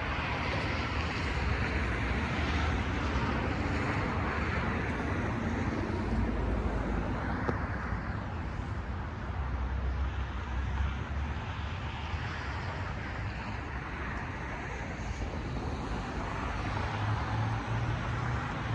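Steady low rumble of distant vehicle engines in the open air; no siren is sounding.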